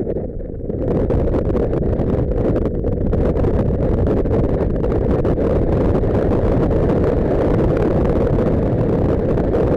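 Wind buffeting the action-camera microphone of a moving motorcycle, with the bike's engine and road noise under it as a steady low rush. It dips briefly just after the start, then stays level.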